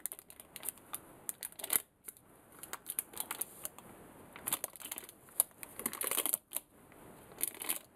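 Baking parchment rustling as it is peeled away from the sides of a chilled, chocolate-glazed cake, with scattered light clicks and taps from handling.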